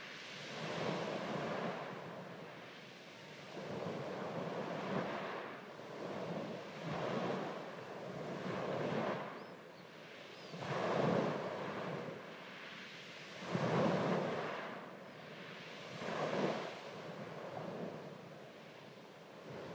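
Small waves breaking and washing up a sandy beach, each surge swelling and fading every two to three seconds.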